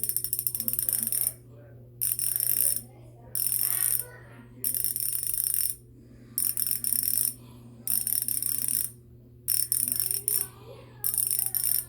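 Koozer XM490 Pro bicycle hub's freehub ratchet (6 pawls, 72 clicks) clicking as it freewheels, a fast run of metallic clicks. It comes in about eight bursts of roughly a second each, with short pauses between.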